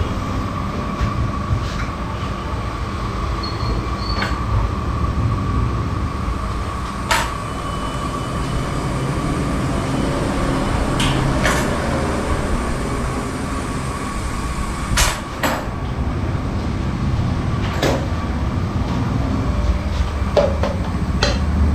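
Steady low machine hum with a faint thin whine, from the stall's kitchen equipment, with scattered sharp clicks and clinks of metal tongs and utensils on the steel counter.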